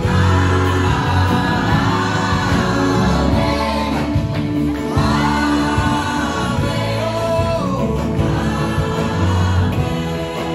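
Live gospel worship song: a man and a woman singing into microphones over a band with keyboard.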